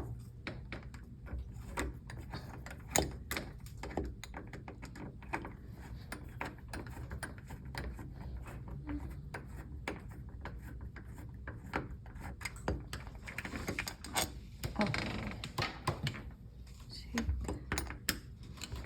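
Screwdriver backing the screws out of an old door knob and lock, with a steady run of small, irregular metal clicks and rattles from the screwdriver and the knob hardware.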